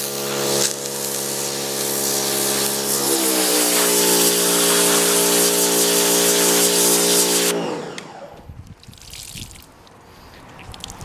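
Pressure washer running: the steady hum of its pump motor under the hiss of the water jet, the hum shifting to a slightly different pitch about three seconds in. It cuts off about seven and a half seconds in, the pitch sagging as the pump winds down, leaving faint handling and dripping sounds.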